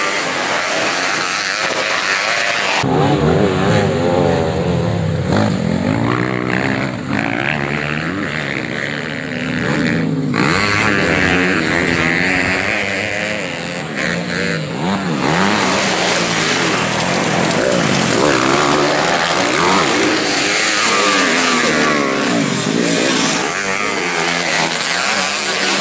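Dirt bike engines revving and easing off repeatedly as the bikes ride the trail. The engine sound changes abruptly a few times.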